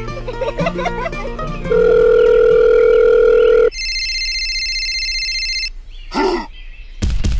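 Light plucked background music, then a loud steady electronic tone for about two seconds, followed by a telephone ring tone for about two seconds. Near the end a rapid even clicking starts, about six a second.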